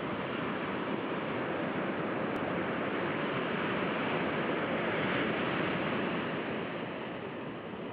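Steady rushing of sea surf, swelling a little and easing off again.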